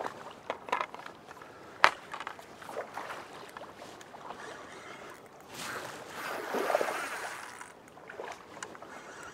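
Shallow river water splashing and sloshing as someone wades through it and works a landing net in the water to land a hooked barbel, with a louder stretch of splashing about six seconds in. A single sharp knock about two seconds in.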